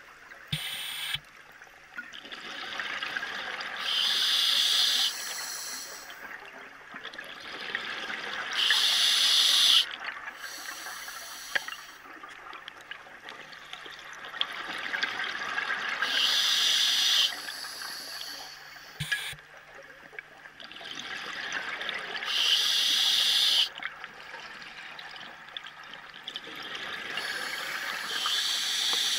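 A scuba diver breathing underwater through a regulator: a short hissing breath in about every six seconds, each followed by a longer stretch of bubbling exhaled air.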